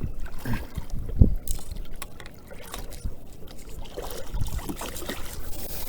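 Water trickling and dripping around a kayak, with scattered small knocks and low thumps of handling in the boat.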